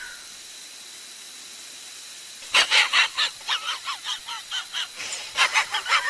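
A rapid string of short, honking, squawking cartoon calls, about four a second and rising and falling in pitch, starting about two and a half seconds in after a faint, steady background.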